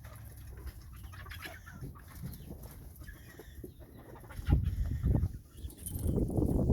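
Chickens clucking softly, with heavy low thumps and rustling about four and a half seconds in and again near the end.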